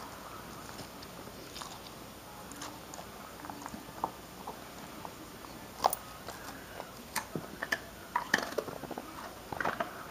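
A dog chewing a bone, with sharp crunches and cracks as it breaks up. The crunches come sparsely at first, then fast and loud from a little past halfway.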